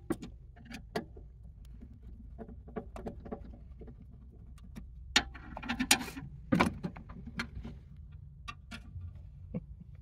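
Screwdriver backing out small screws from a steel safe door: scattered light metallic clicks and ticks. A cluster of louder clinks and clatter comes about five to seven seconds in as the old keypad is taken off the door.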